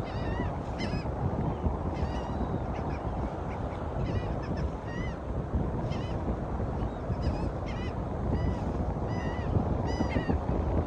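Birds calling over and over, many short arched cries, over a constant low rush of wind and surf.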